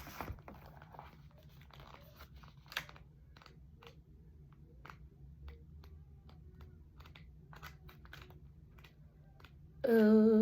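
Faint, scattered small clicks and crinkling rustles of handling, then a woman's voice begins humming near the end.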